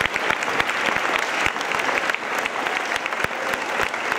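Audience applauding: dense, steady clapping from a large crowd in a big hall.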